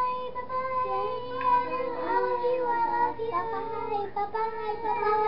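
Young children singing together as a group, holding long notes.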